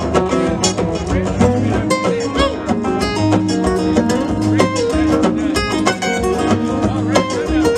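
Acoustic guitar strummed in a blues instrumental break between sung verses, with quick picked single notes moving over the rhythm.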